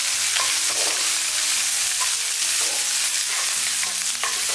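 Green chili peppers sizzling in hot oil in a nonstick wok, with a steady hiss and repeated strokes of a wooden spatula pressing and turning them as they stir-fry until soft.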